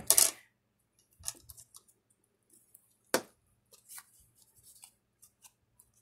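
Faint handling of paper while a glue stick is worked under a torn collage piece, with one short, sharp click about three seconds in.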